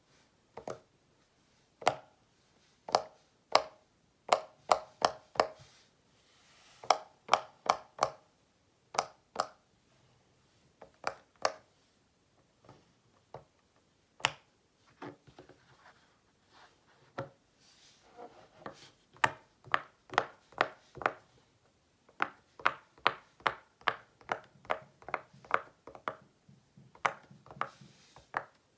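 Silicone pop-it fidget toy's bubbles being pressed in one after another, each giving a short, sharp pop. The pops come in quick runs, with a sparser, quieter stretch in the middle.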